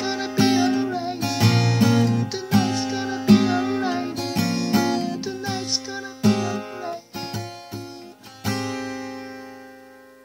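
Acoustic guitar strummed through the closing chords of a song. A last chord is struck about eight and a half seconds in and left to ring, fading out.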